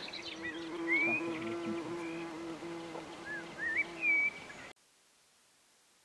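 A flying insect buzzing steadily for about three seconds, with a few short bird chirps over it. All sound cuts off abruptly near the end.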